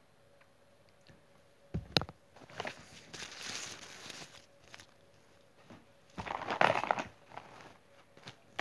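Fabric scraps being handled, stretched and crumpled, giving rustling and crinkling in bursts, with a sharp knock about two seconds in and the loudest rustling around two-thirds of the way through.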